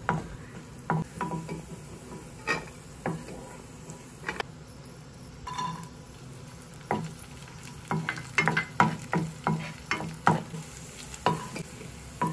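Cashew nuts and then raisins frying in ghee in a nonstick pan: a faint steady sizzle, with a wooden spatula stirring and tapping against the pan in irregular knocks that come thick and fast in the second half.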